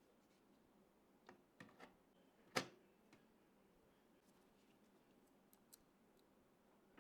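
Quiet room with a few light clicks and one sharper click about two and a half seconds in, then faint ticks near the end.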